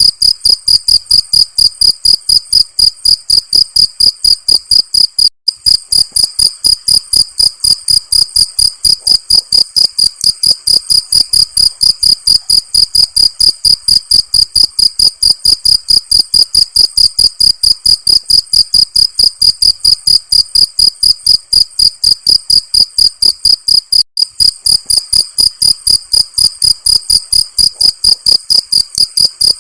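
Crickets chirping: a loud, high-pitched chirp repeating fast and evenly, several times a second, broken twice by a split-second pause.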